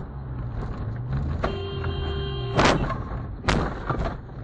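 A car horn sounds one steady note for about a second over the low drone of the car's engine and road noise. Two sharp thuds follow, the first the loudest.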